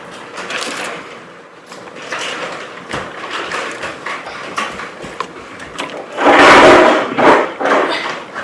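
Eating at the table: scattered clicks and soft rustles from chewing and handling shellfish, with a louder rustling scrape a little past six seconds.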